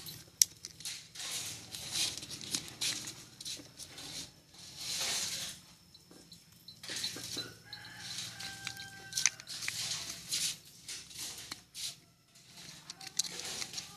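Plastic parts of a dismantled washing-machine timer being handled: irregular clicks, scrapes and rustles that come and go in short bursts.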